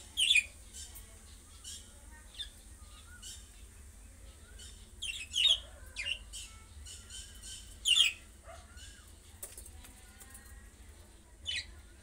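Budgerigars chirping and chattering: about five loud, sharp calls stand out over a softer warbling chatter.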